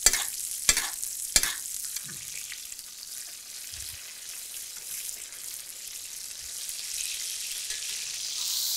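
Butter sizzling in a cast iron skillet as a porterhouse steak is basted on low heat, spooned over with melted butter, thyme, garlic and shallots. The metal spoon clicks against the pan a few times in the first couple of seconds, and the sizzle grows louder near the end.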